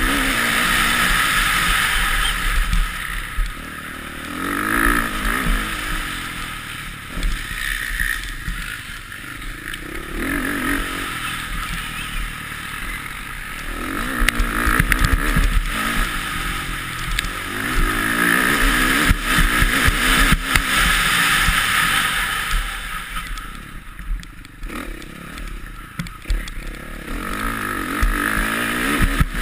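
Motocross bike engine at race speed, revving up and dropping back again and again as the rider opens and closes the throttle, heard close up from the rider's onboard camera.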